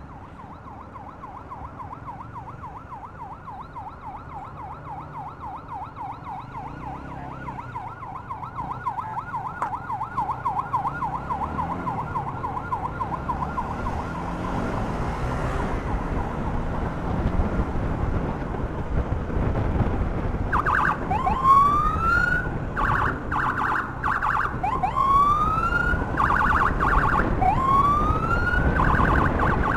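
Electronic emergency sirens. A fast warble fades out about halfway through. From about two-thirds of the way in, a siren switches between rising whoops about a second long and short bursts of rapid pulsing tone, over road and engine noise that keeps getting louder.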